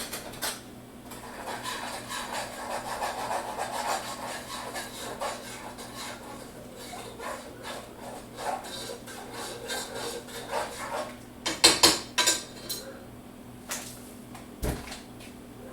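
A utensil scraping and clinking around a mixing bowl as muffin batter is stirred. A louder clatter of dishes comes about twelve seconds in, and a single thump near the end.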